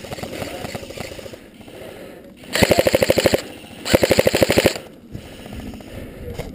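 Airsoft electric gun (AEG) firing two rapid full-auto bursts, each a bit under a second long, with a short pause between them.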